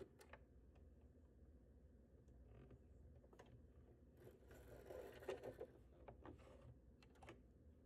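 Near silence with a few faint clicks and a soft rustle about four to six seconds in: thread being handled and the needle threader of a Singer Heavy Duty 4423 sewing machine being worked.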